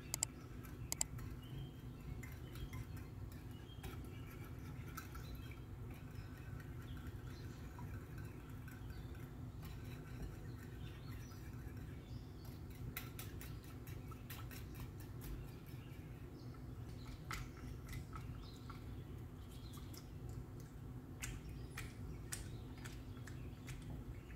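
A metal wire whisk beating a thin egg-and-milk batter in a glass dish, with irregular light clicks of the wires against the glass over a steady low hum.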